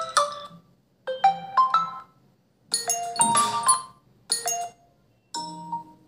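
Built-in OnePlus phone ringtones previewed one after another through the phone's speaker. Four short snippets of melody start in turn, each cut off after about a second as the next ringtone in the list is tapped.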